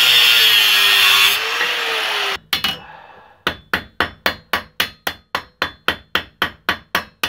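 An angle grinder cuts through a steel nail for about two seconds: a loud grinding hiss over the steady whine of the motor. After a short gap a hammer peens the nail end over on an anvil, a quick series of sharp metal strikes at about four a second.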